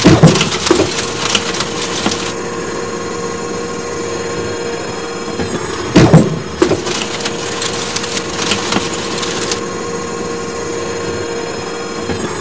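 Cartoon claw-machine sound effects: a steady mechanical whir with a loud clunk at the start and another about six seconds in, as the claw grabs.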